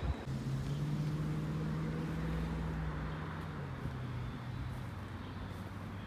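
A motor vehicle's engine humming at a steady low pitch, fading out about five seconds in, over steady outdoor background noise.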